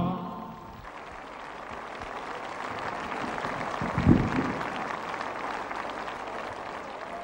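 Audience applauding after a song's last note dies away at the start, the clapping building up over the first few seconds. A single low thump about four seconds in.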